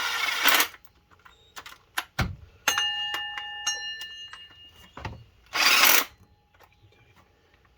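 Small impact wrench running water pump bolts down in short bursts. During the longest burst, about three seconds in, rapid hammering sets the water pump pulley ringing like a bell.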